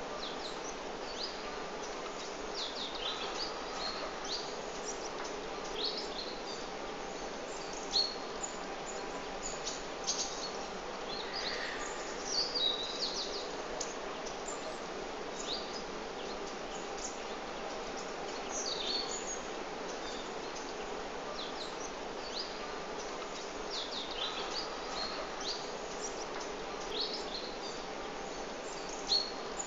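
Birds chirping in short, scattered calls, several at a time now and then, over steady background noise.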